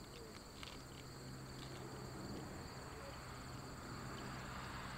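Insects chirring in a steady, high-pitched chorus, with a faint low hum underneath.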